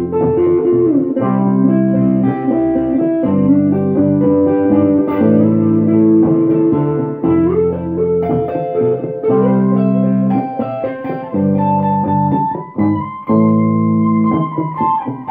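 Guitar, most likely electric, played through heavy delay so that notes repeat and pile up into a sustained wash. There are sliding rises in pitch and a long held high note near the end.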